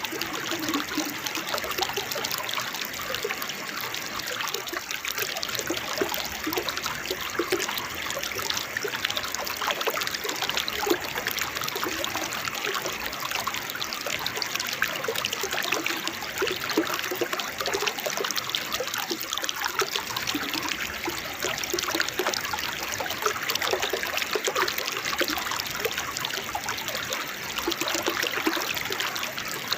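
Small waterfall: water splashing and babbling without a break, with fine gurgles in the flow.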